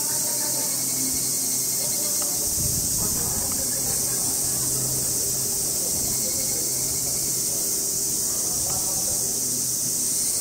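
Cicadas buzzing in a dense, steady, high-pitched chorus.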